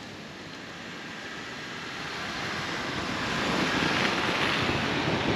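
Two-door Ford Bronco driving through deep snow on aired-down tires, engine and tires churning the snow, growing louder as it comes closer over the first four seconds.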